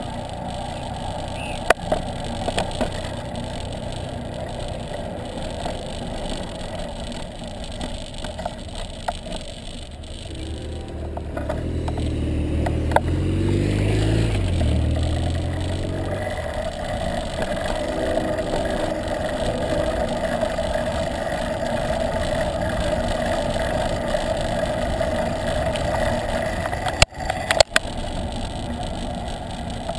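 Steady wind and road noise on the microphone of a camera riding on a moving bicycle. About halfway through, a motorcycle engine passes close by, growing louder and shifting in pitch as it goes past. There are a few sharp knocks near the start and near the end.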